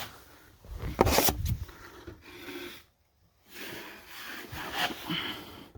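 Drywall knife scraping wet joint compound over a taped wall patch in several irregular strokes, the loudest about a second in, with a brief silent gap about halfway.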